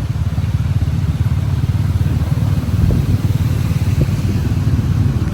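A motorbike engine running steadily, a fast, even low rumble.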